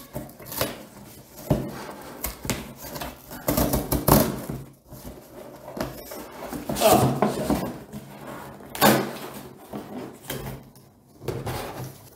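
Large cardboard shipping box being torn open by hand: the tape and cardboard flaps rip and scrape in irregular bursts, with a few knocks against the box.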